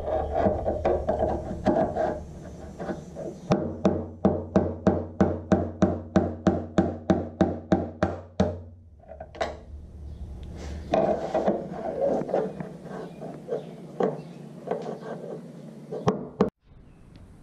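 Hammer driving a flathead screwdriver through the inner brim of a Kawasaki 636's steel fuel tank around the filler opening: a quick, even run of taps, about three or four a second, for some five seconds, then a few scattered knocks.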